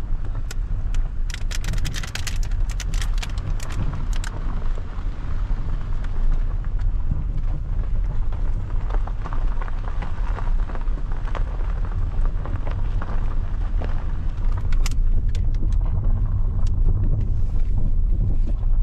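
Car driving, heard from inside the cabin: a steady low rumble of engine and tyres on the road. Clusters of sharp clicks and rattles come in the first few seconds and again about fifteen seconds in.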